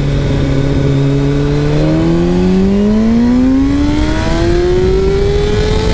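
Sport motorcycle engine under hard acceleration in first gear: the revs hold briefly, then climb steadily for about four seconds and start to drop right at the end as it shifts up.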